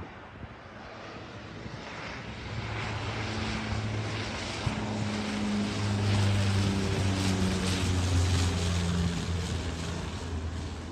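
An airplane's engines drone as it passes close by, growing louder to a peak about six to eight seconds in, then easing off.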